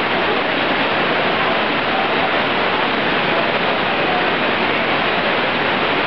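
Water splashing steadily from a small cascade spilling over a ledge into a garden display, an even rushing hiss with no breaks.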